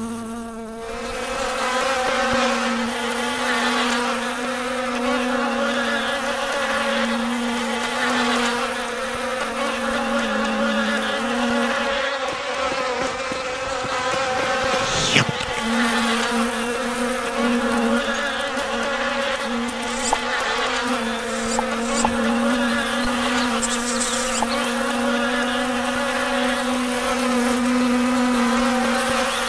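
Steady buzzing drone of a flying fly, one constant hum throughout. A single short sharp sound cuts across it about halfway through.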